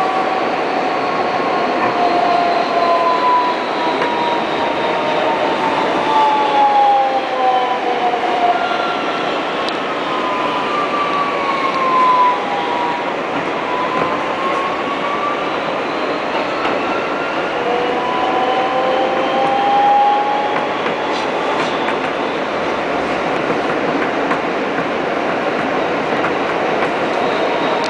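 Kawasaki R160B subway train heard from inside the car: a steady rumble of wheels on track, with the traction motors' whine gliding down in pitch over the first dozen seconds as the train slows, then gliding back up as it gathers speed again.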